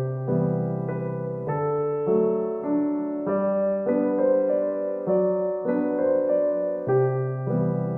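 Background music: a soft piano or electric-piano piece, gentle chords changing every half second or so.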